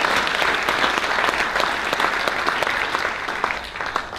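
Audience applauding, many hands clapping at once, thinning out and fading near the end.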